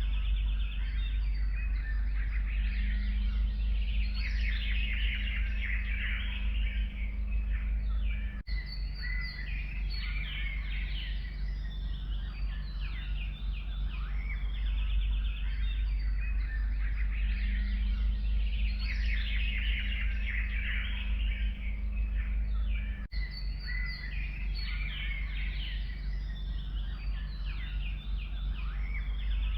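A chorus of many forest birds singing and chirping at once, with dense overlapping calls and trills, over a steady low rumble. The sound cuts out for an instant about eight seconds in and again near 23 seconds.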